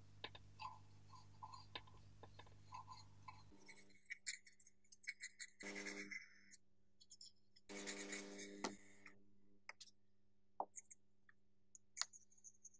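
Faint taps, clicks and scrapes of a plastic toothbrush dabbing and brushing paint stripper onto the painted metal housing of a hand-cranked pencil sharpener, with two short scrubbing spells about halfway through and a few sharper clicks later on.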